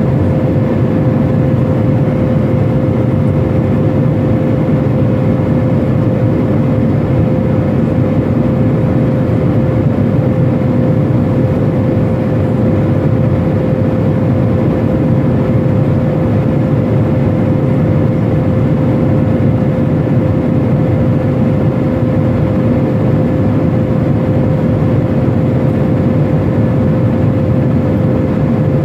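Steady airliner cabin noise in flight: the jet engines' drone and rushing airflow, with a constant hum on one note.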